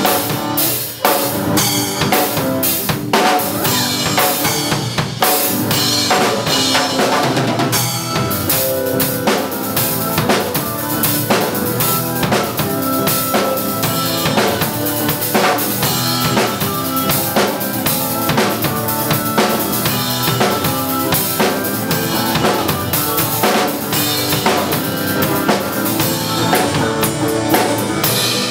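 Music track with a steady drum-kit beat: bass drum, snare and rimshots over pitched instruments.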